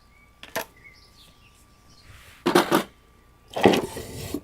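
Handling noise of a cordless impact driver being fitted with a socket holder: a couple of sharp clicks about half a second in, then two short, louder clatters, without the tool running.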